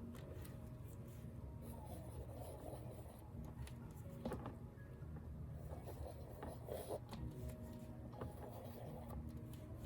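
Faint scraping and rubbing of a painting tool working wet paint on a canvas, with a few soft taps, over a low steady hum.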